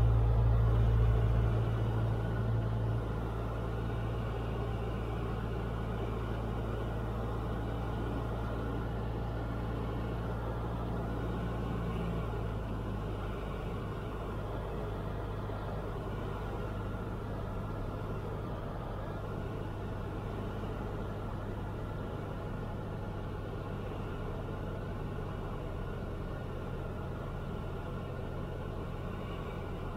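Cessna 172's piston engine and propeller droning steadily, heard inside the cockpit. The drone drops a step about two seconds in, eases a little further around twelve seconds in, and then holds steady.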